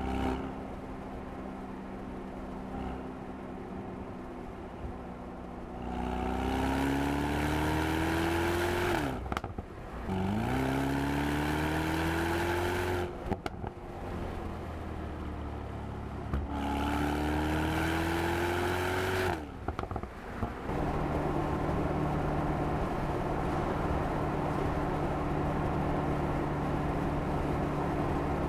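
Mercedes-AMG SL 63's 4.0-litre twin-turbo V8 exhaust, cruising steadily, then accelerating hard three times: each time the engine pitch climbs and drops back sharply at the gearshift. It settles into a steady cruise near the end.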